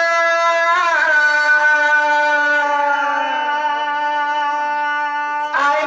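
Music: one long held note, very steady in pitch, with a short dip about a second in, breaking off shortly before the end.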